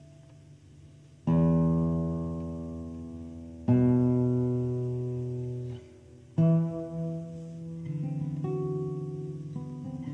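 Classical guitar built by Alkis Efthimiadis, played solo: a faint held note, then three strong chords (about a second in, near four seconds and past six seconds), each left to ring and fade, followed by a quicker run of plucked notes near the end.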